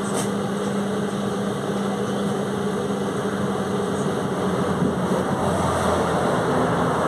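Volkswagen 17.230 OD bus engine running steadily, growing a little louder and deeper in the last couple of seconds.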